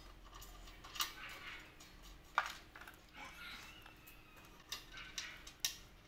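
Scattered small metal clinks and taps as screws and lock washers are handled and fitted at a metal base plate, with the sharpest clink about two and a half seconds in.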